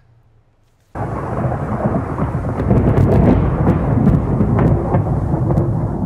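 Thunderstorm: loud rumbling thunder with rain, starting suddenly about a second in, with a few sharp crackles.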